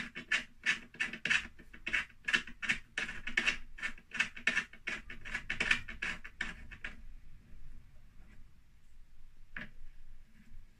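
Hands working a small black plastic-and-metal wardrobe fitting against a particle-board panel: quick scratchy rubbing strokes, about four a second, for some seven seconds, then two short clicks near the end.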